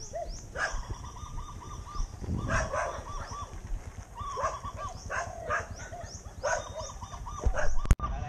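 A dog barking every second or two, with birds calling in quick runs of repeated notes behind it. A single sharp click near the end.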